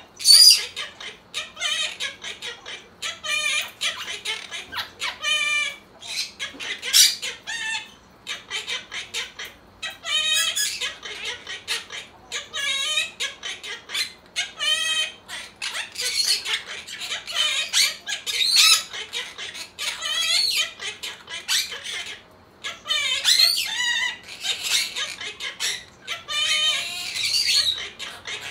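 Monk parakeets singing together, imitating a song with a continuous run of short, high, warbling phrases mixed with squawks.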